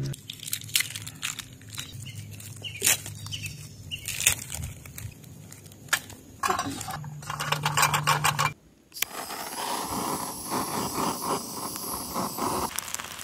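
Clinks, clicks and plastic-bag rustling as a small stainless-steel charcoal grill and its parts are handled and set up. After a short break about two-thirds of the way in, a jet torch lighter hisses steadily with crackling sparks as it lights charcoal tablets, cutting off near the end.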